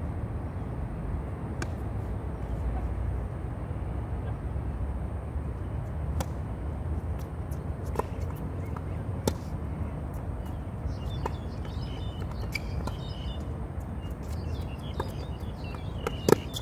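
Tennis rally on a hard court: sharp pops of racket strings striking the ball and the ball bouncing, spaced a second or more apart. The loudest pop, near the end, is a forehand hit close by. A steady low background rumble runs throughout.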